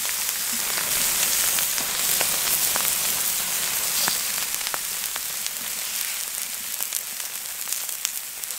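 Meat and vegetables sizzling in fat on a hot fire plate (griddle plate) over a charcoal kettle grill. A steady hiss is dotted with frequent sharp pops and spatters, and it grows a little quieter about halfway through.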